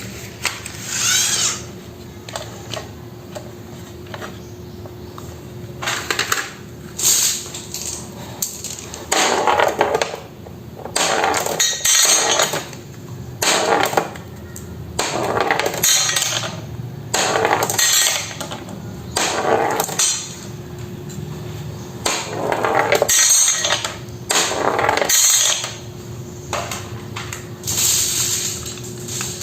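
Marbles rolling and clattering down a wooden wave-slope marble run in repeated rattling bursts, one run every second or two.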